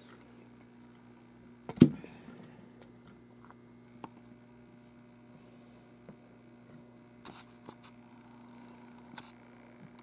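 A diecast toy engine set down on a model railway layout with one sharp knock about two seconds in, followed by a few faint clicks as it is handled. A steady low electrical hum runs underneath.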